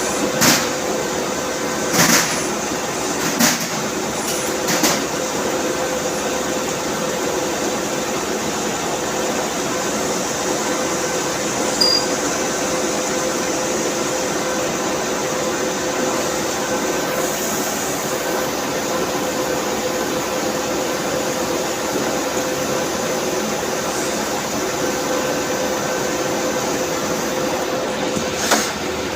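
CNC machine running with a steady hum and several held tones, with a few sharp clicks in the first five seconds and one more near the end.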